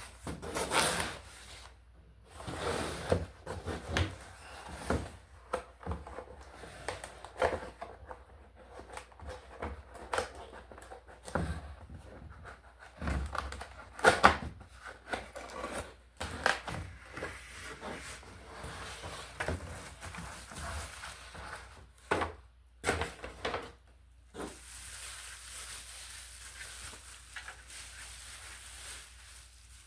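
Cardboard and plastic packaging rustling, with irregular clicks and knocks, as a laptop cooling pad is unboxed by hand; a steadier hiss over the last few seconds.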